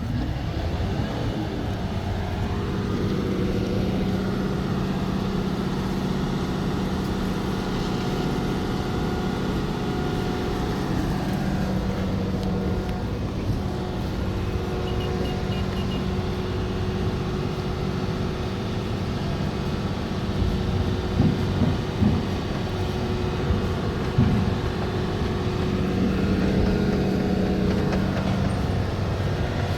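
Heavy diesel engine running steadily under load, its pitch dipping and rising briefly partway through, with a few metallic clanks about two-thirds of the way in.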